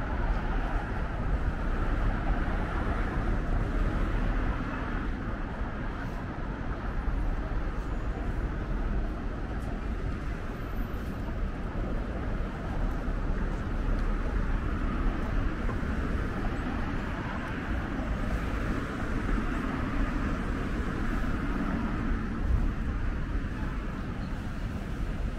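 Steady city street ambience: the low, even rumble of road traffic, with no single event standing out.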